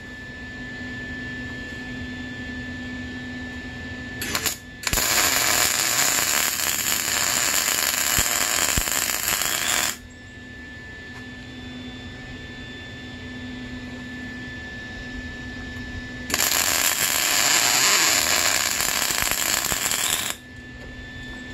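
Wire-feed (MIG) welder arc crackling and sizzling as weld is laid onto the worn pivot of a Honda CRF250R kick-start lever to build the worn spot back up. There is a short blip about four seconds in, then about five seconds of welding, a pause, and a second run of about four seconds near the end, with a steady hum in between.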